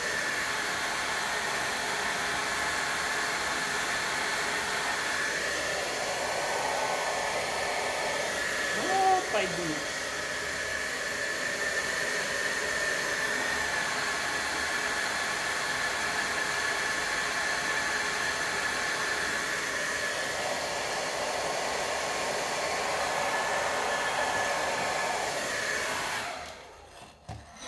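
Handheld hair dryer running on its highest setting, a steady blowing hiss with a faint whine, heating a Loctite-locked scooter axle nut. It cuts off suddenly near the end.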